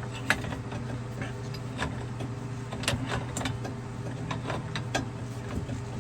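Sharp metallic clicks, a few scattered through, as a pipe wrench works a threaded pipe nipple tight into the water-meter ball valve. Under them a steady engine hum.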